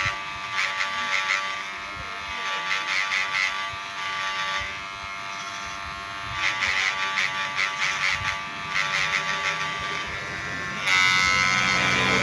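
Cordless hair clipper running with a steady buzzing hum, with louder, rougher bursts coming and going every couple of seconds.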